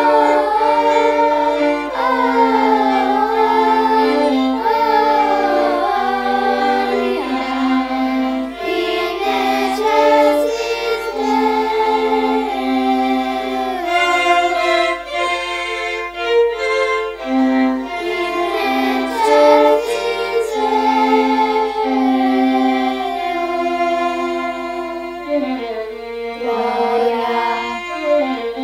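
Small children's choir singing a Christmas song with violin accompaniment.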